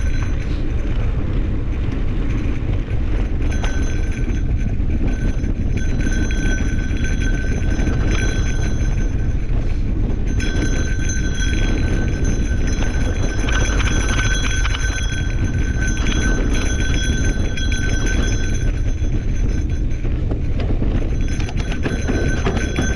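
Mountain bike rolling along a dirt singletrack, with a steady rumble of wind and tyre noise on the bike-mounted camera. A high, steady whine from the bike comes in a few seconds in, drops out briefly about ten seconds in and again near twenty seconds, and returns.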